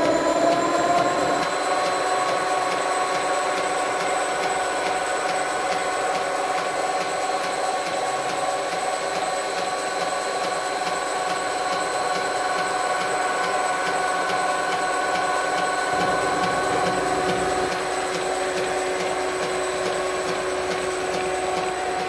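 A 1957 CVA lathe's 4 hp three-phase motor, fed from a Huanyang VFD, whines up in pitch over the first second or two and then runs at a steady speed with a high electronic whine, driving the lathe's belts and pulleys. A light, regular clunk comes from the drive belt, which is coming apart at its join.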